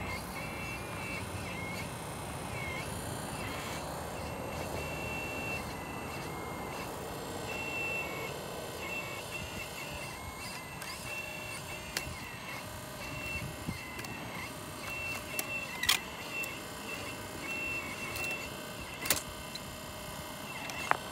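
Remote-control model excavator (Liebherr 964 replica) moving its boom and grapple: a high motor whine that starts and stops with each movement, over a steady hiss. Four sharp knocks in the second half, the loudest of them past the middle, as the grapple and rocks strike.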